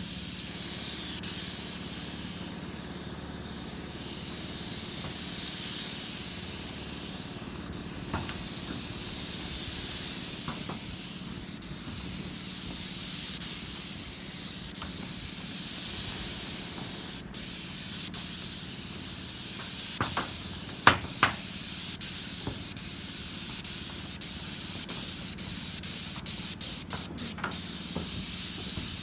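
High-pressure paint spray gun on a long wand, spraying paint onto corrugated metal roof sheeting with a steady high hiss that swells and fades as the wand sweeps. The spray cuts out briefly once in the middle and several times in quick succession near the end.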